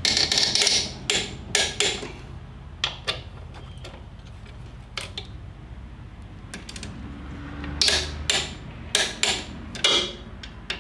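Torque wrench clicking and knocking on the rear brake caliper bolts of a Harley-Davidson touring bike as they are tightened to 43 to 48 foot-pounds. The sharp metallic clicks are irregular, bunched in the first two seconds and again from about eight to ten seconds in.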